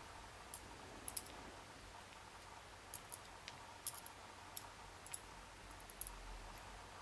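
Light, irregular clicks of metal tweezers and tiny lock pins tapping together as key pins are handled and set down from a disassembled Abus D10 dimple lock.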